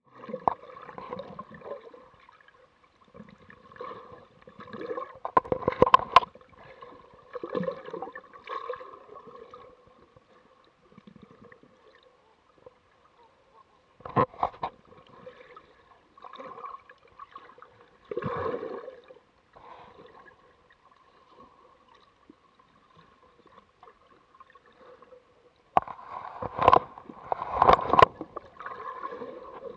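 Shallow seawater sloshing and gurgling around a waterproof camera held at the surface in a kelp bed, heard muffled through its housing. Several louder bursts of splashing and rubbing break in, the longest near the end as kelp fronds brush against the lens.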